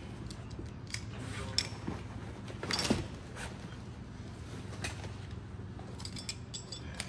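Rustling of heavy turnout gear and scattered metal clinks and clicks of SCBA harness straps and buckles as a firefighter handles a downed firefighter's gear, the loudest clink about three seconds in. A steady low hum runs underneath.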